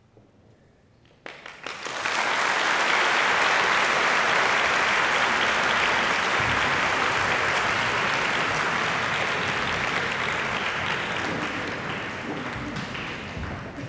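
Audience applauding, breaking out suddenly about a second in and slowly tapering off near the end.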